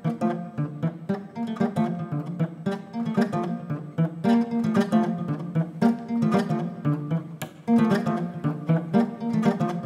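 Background music played on a plucked string instrument, with notes picked in quick succession.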